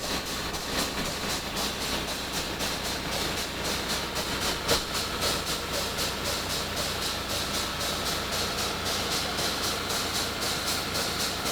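Water-well drill rig running: a steady hissing mechanical noise with a fast, even clatter of about four or five beats a second.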